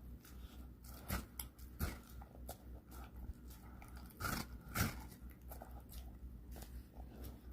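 Pit bull chewing watermelon, with irregular wet crunching bites, the loudest about a second in, near two seconds, and twice around four and five seconds in.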